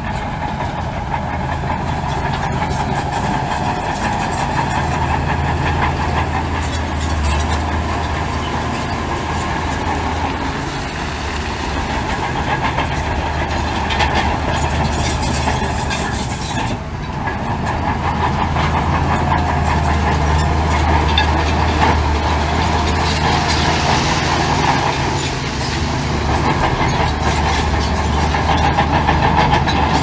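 Heavy diesel earthmoving machinery working: a big diesel engine running under load that swells and eases, over a continuous metallic clatter and rattle. The sound dips briefly about halfway through.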